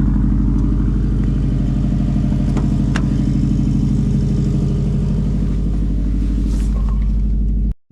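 2011 Subaru WRX's turbocharged flat-four engine idling steadily while it warms up. The sound cuts out abruptly near the end.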